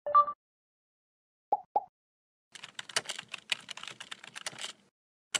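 Computer keyboard typing sound effect: a quick run of key clicks lasting about two seconds. It comes after a short, loud electronic blip at the start and two quick pops about a quarter second apart, and a single sharp click comes near the end.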